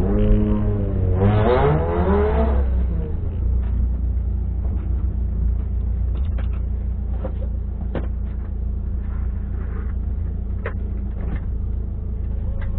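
Alfa Romeo's engine heard from inside its stripped cabin. Its pitch rises and falls in the first couple of seconds, then it settles to a steady idle. A few sharp clicks and knocks from inside the car are scattered through the idle.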